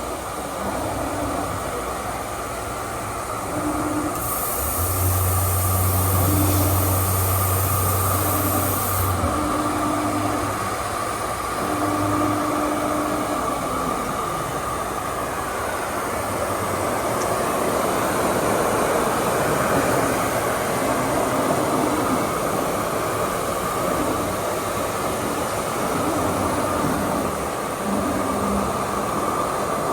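Steady machinery noise, a continuous hum and hiss with short intermittent tones; a deeper hum joins for a few seconds about five seconds in.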